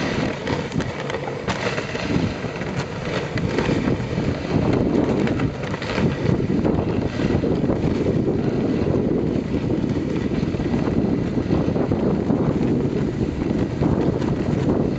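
Steady rushing of a wooden dog sled gliding over packed snow, mixed with wind buffeting the microphone.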